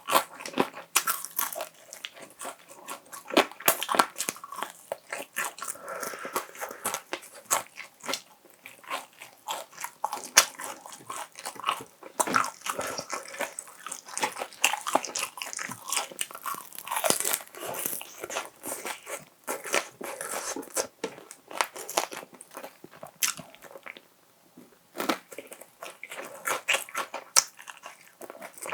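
Close-miked crunching and chewing of crispy fried chicken: many sharp crackling bites and chews, with a short pause near the end.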